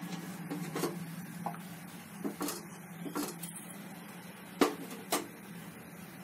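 Milk boiling in a kadai on a gas stove, under a low steady hum, with a few sharp knocks against the pan. The loudest knock comes about four and a half seconds in.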